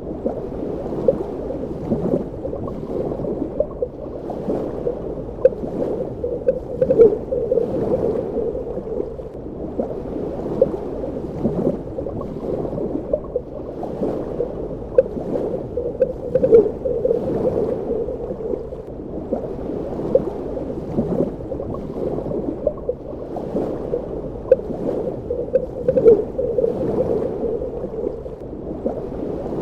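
Underwater ambience: a muffled, low water rush with frequent small bubbling gurgles popping through it.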